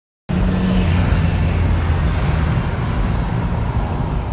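Steady road noise from a car travelling at highway speed, loud and deep, cutting in abruptly a fraction of a second in.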